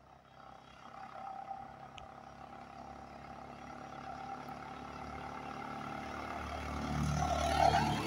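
A road vehicle's engine approaching along the road, growing steadily louder and loudest near the end as it comes close.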